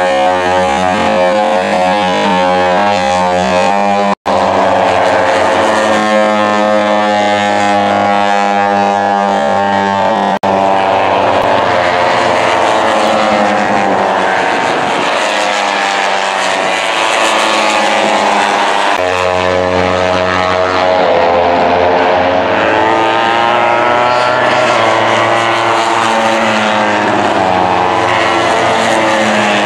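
Racing motorcycle engines at high revs, pitch rising and falling as the bikes accelerate, shift and brake through the corners. The sound cuts out for an instant about four seconds in and again about ten seconds in.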